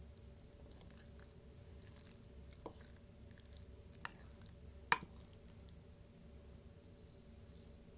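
Glass clinking twice: a light clink about four seconds in, then a louder, sharper one just after with a brief high ring, amid a few faint ticks.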